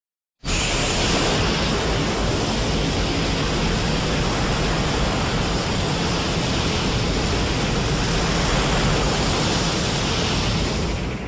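Steady rushing noise, an even hiss with a low rumble beneath it: a Burning Godzilla sound effect. It starts about half a second in and fades out at the end.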